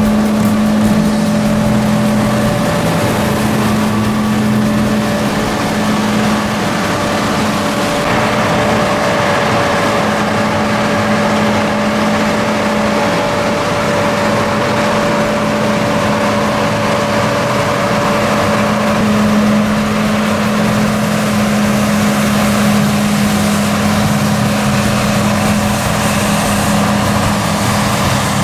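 An engine running steadily at a constant speed, with a steady hum and noise.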